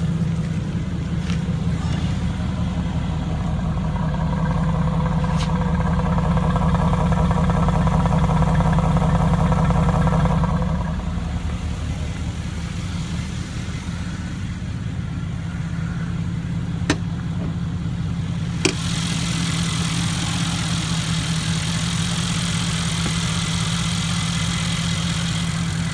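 The 2016 Mercedes-AMG GT S's twin-turbo V8 idling steadily. A higher hum sits over it for several seconds in the first half. Two sharp clicks come a couple of seconds apart past the middle, and a steady hiss joins in for the last quarter.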